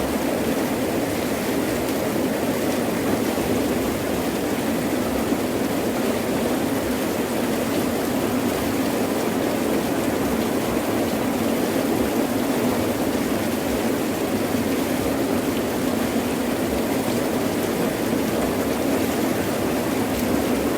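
Heavy rain pouring steadily, an even, unbroken rush with no thunder.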